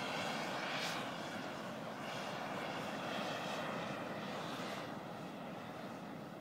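Steady rushing hiss of steam venting from thermal features, with short surges about a second in and again between four and five seconds.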